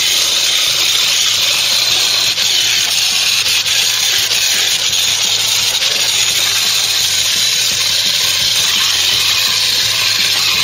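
Angle grinder grinding the welded steel floor pan of a Ford Cortina Mk3, running steadily with the disc on the metal throughout.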